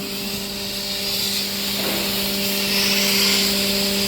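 Hydraulic scrap baler's power unit running, a steady hum with a hiss over it that grows louder about a second in.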